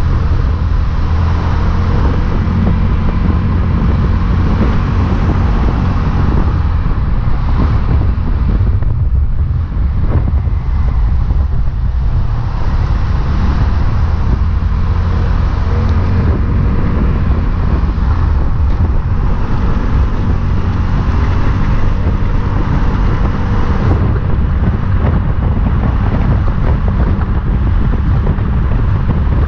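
Motor vehicle on the move, heard from an on-board camera: a steady low engine drone with road and wind noise on the microphone.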